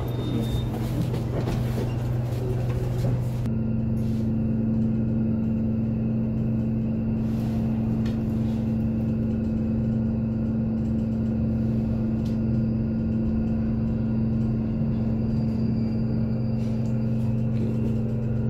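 Passenger lift car travelling up, running with a steady low hum. About three and a half seconds in, a second steady tone joins it and the higher background noise falls away.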